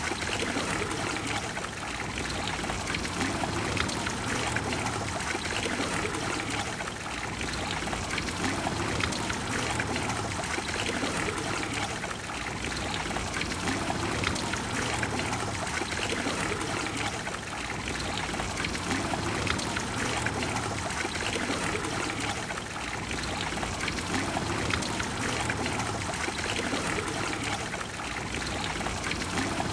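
Water of the Trevi Fountain pouring and splashing steadily into its basin, the level swelling and easing gently about every five seconds.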